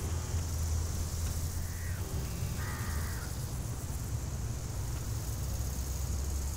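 A crow cawing, two short harsh calls about two to three seconds in, over a steady low drone and a steady high hiss.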